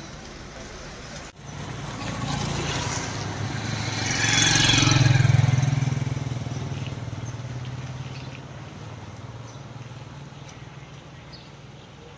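A motor vehicle passing on a rain-soaked road: engine hum and the hiss of tyres on wet tarmac swell to a peak about five seconds in, then fade slowly. A steady hiss of heavy rain lies under it.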